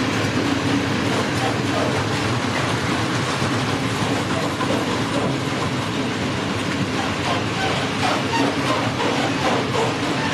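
Empty Fals hopper freight wagons rolling past: a steady rumble of wheels on the rails with some clattering.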